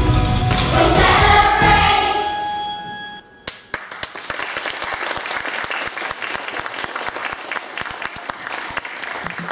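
A children's choir singing over a backing track fades out about three seconds in. After a short gap, applause runs on to the end.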